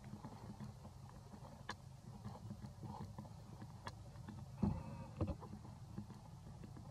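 Steady low rumble with scattered faint clicks and snaps, and two louder knocks a little past halfway, from macaques moving about on tree branches.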